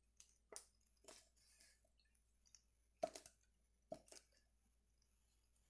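Near silence, broken by a few faint clicks and taps from a cardboard cream carton being squeezed and poured into a plastic measuring jug; the loudest click comes about three seconds in.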